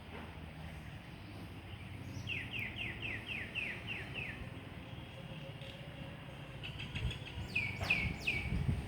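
A bird calling: a quick run of about seven falling chirps at roughly three a second, then three louder falling notes near the end. A steady low rumble runs underneath.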